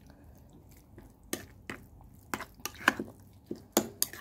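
Thick curd being mixed into gooseberry (amla) pachadi in a bowl: irregular wet squishes and clicks, starting about a second in and coming several times a second.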